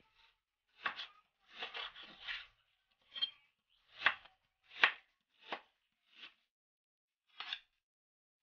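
Kitchen knife slicing raw meat on a plastic cutting board: about eight separate cutting strokes, roughly one a second, the loudest about four and five seconds in.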